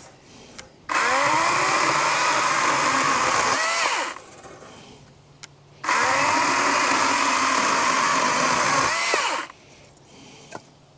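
Battery-powered Wild Badger 16-inch chainsaw running in two bursts of about three seconds each. The motor whines up to speed when the trigger is pulled and winds down when it is released. A few light clicks fall between the bursts.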